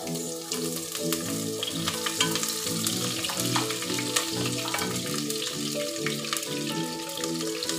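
Chopped aromatics sizzling in hot oil in a pot, starting right at the beginning, with scattered clicks of a wooden spoon stirring them against the pot. Background music plays underneath.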